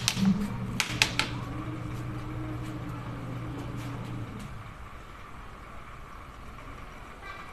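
Three sharp metallic taps about a second in, typical of a piston being tapped down through a ring compressor into the cylinder bore of a HOWO diesel engine block. Under them a steady low mechanical hum, which fades out about four and a half seconds in.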